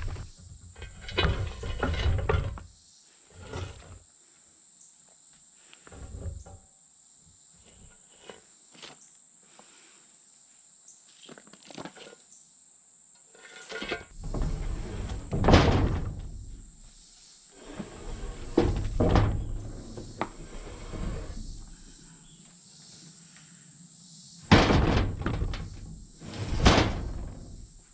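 Irregular scraping and knocking, with short bursts and quiet gaps between them, as old paint loosened by chemical stripper is cleaned off an arbor press's metal frame. A faint steady high whine runs underneath.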